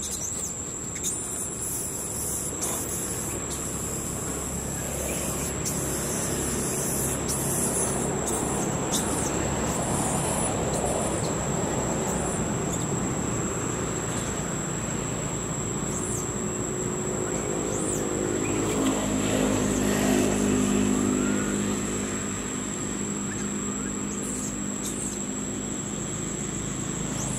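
Outdoor ambience of road traffic going by, with one engine's hum swelling for several seconds about two-thirds of the way through. Under it runs a constant high-pitched insect whine, with occasional bird chirps.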